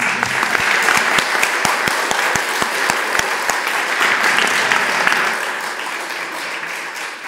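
Audience applauding, starting suddenly and tapering off over the last couple of seconds.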